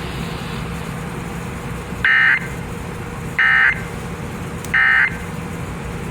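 Three short bursts of Emergency Alert System SAME data tones, about a second apart, over the steady hiss of a NOAA Weather Radio broadcast. These are the end-of-message bursts that close a severe thunderstorm warning.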